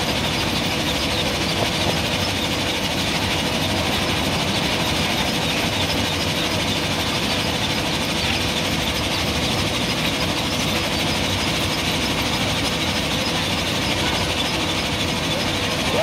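JCB 3DX backhoe loader's diesel engine running steadily under load while the backhoe digs sand, an even, unbroken machine noise with a faint constant hum.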